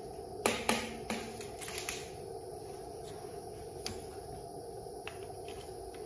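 Steel tape measure being handled: a few sharp clicks and clacks, the loudest about half a second in with a brief ringing after, then more near two seconds and one about four seconds in, over a steady background hum.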